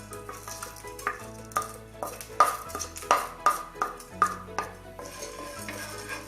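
A spoon stirring whole spices (black pepper, cumin and fenugreek) as they roast in a hot pan, with a series of sharp metallic clinks of the spoon against the pan, loudest in the middle. Soft background music plays underneath.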